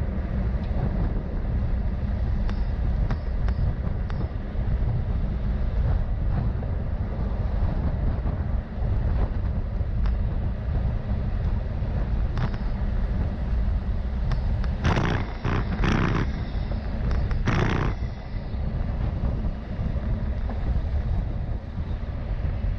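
Steady low rumble of road traffic, with a cluster of four short, louder sounds about fifteen to eighteen seconds in.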